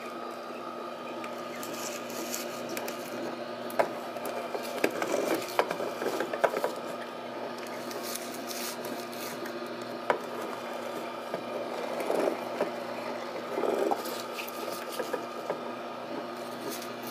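Tribest Greenstar Elite twin-gear slow juicer running with a steady low hum, its gears crushing spinach leaves with irregular crackles and rubbing, rasping scrapes.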